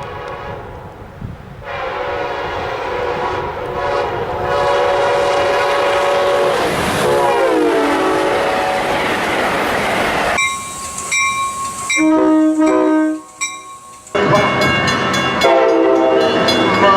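Train air horns from several passing trains, one after another. The first holds a multi-note chord that falls in pitch and gives way to the rush of the train. The next is sounded in short separate blasts, and a last loud chord follows.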